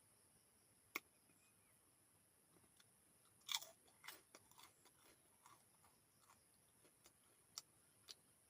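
Eating sounds: faint crunchy bites and wet chewing clicks, bunched together about three and a half seconds in, with single sharp clicks about a second in and twice near the end.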